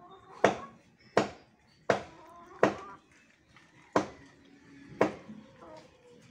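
Chopping strokes of a blade biting into a tree branch as it is cut off: six sharp strikes, about one every three-quarters of a second, with a short pause after the fourth.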